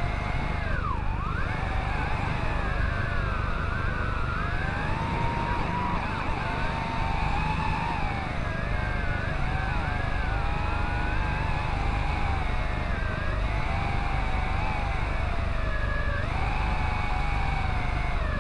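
Quadcopter drone's motors and propellers whining, heard from the drone itself, the pitch sliding up and down as it manoeuvres, with a sharp dip about a second in and a jump up near the end. A steady low rumble runs underneath.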